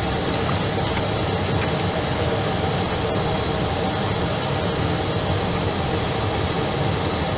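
Steady drone of an Airbus airliner in flight on approach, engines and airflow running evenly with no change.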